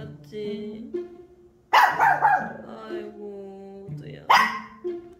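Small poodle-mix puppy barking twice, sharply, about two and a half seconds apart, over light background music.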